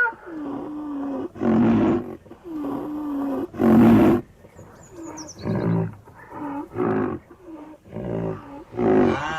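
Rhinoceros calls: low, wavering moans alternating with loud, harsh bellows, repeated several times. A short high whistle falls in pitch about five seconds in.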